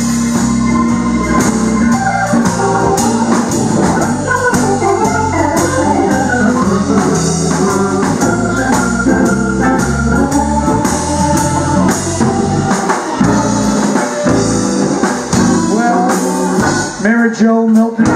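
Live blues band in an instrumental break, the Hammond XK-3 organ playing out front over electric bass and drums.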